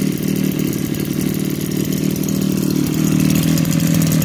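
Maruyama BIG-M KC26 brush cutter's 26cc two-stroke engine idling steadily, its blade not spinning.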